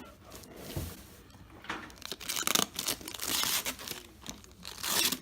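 Plastic packaging being pulled, torn and crinkled off a new headlight: irregular rustling and ripping, busiest in the second half.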